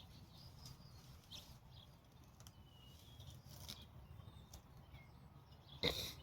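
Faint outdoor ambience: a low steady rumble with birds chirping now and then in the distance, and one brief sharp noise near the end.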